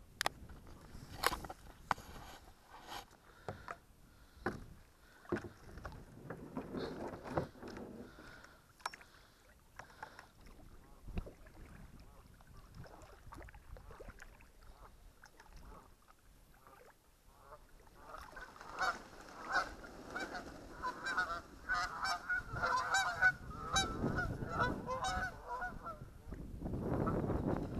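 A flock of geese honking, a dense run of repeated calls through the second half. Earlier there are scattered knocks and clicks from the kayak and paddle, and near the end a low rush of wind or water.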